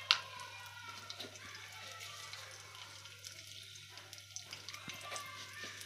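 Mustard seeds sizzling in hot oil in a steel kadhai, with scattered small pops and crackles as they start to splutter; one sharp click just after the start is the loudest sound.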